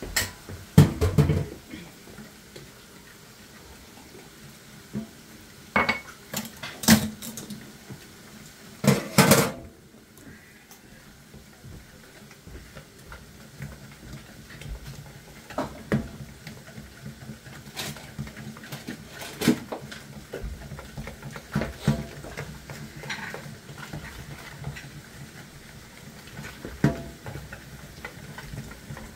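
Kitchen utensils and dishes clattering, with the loudest knocks about a second in and again around seven and nine seconds, then batter being hand-whisked in a plastic bowl, with scattered light taps of the utensil against the bowl.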